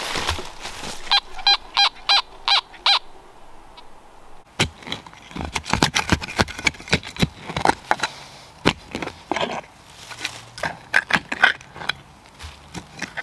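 Fisher F19 metal detector giving about six short beeps in quick succession as its coil passes over a buried target. Then a digging tool chops and scrapes into the soil in a rapid run of knocks.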